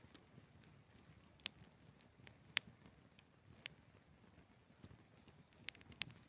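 Wood campfire crackling: a handful of sharp pops at irregular intervals over a faint low rumble.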